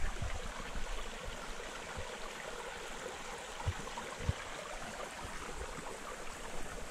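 A shallow, rocky brook trickling steadily over stones, with a couple of soft low thumps near the middle.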